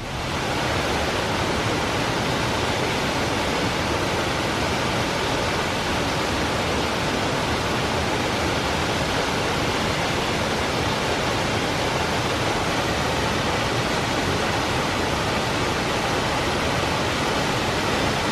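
Aira Force waterfall: the steady, even rush of water falling through a rocky gorge, fading in at the very start and then holding level.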